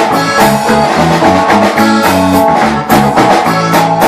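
Norteño band playing an instrumental passage between verses of a corrido: plucked and strummed strings over a steady bass line in a regular rhythm.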